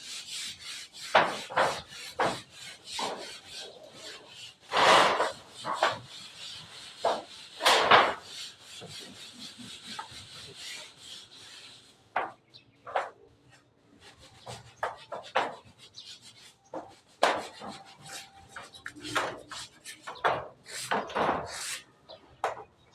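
Wood being worked by hand: irregular knocks and scraping, rubbing strokes on timber, thicker in the first half and sparser later.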